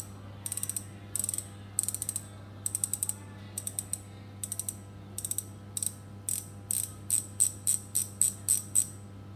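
Shimano freehub body turned by hand, its pawls clicking against the ratchet teeth in quick runs of several clicks. The pawls have just been oiled with 30-40 oil. The runs get louder and come closer together in the second half.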